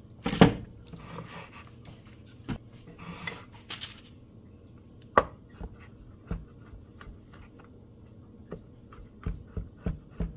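Chef's knife chopping pitted black olives on a wooden cutting board: a sharp knock about half a second in, scattered single taps, then a quicker run of knife strikes on the board near the end.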